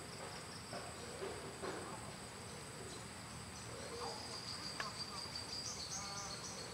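A steady insect chorus with an even, high-pitched drone, with a few faint short chirps over it.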